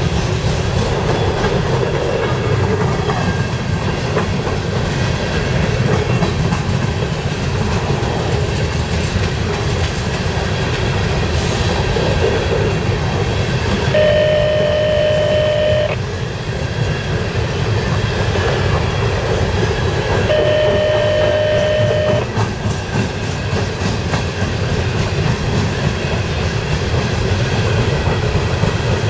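Coal train hopper cars rolling past with a steady rumble and clatter of steel wheels on rail. A diesel locomotive horn sounds two blasts of about two seconds each, about halfway through and again some six seconds later.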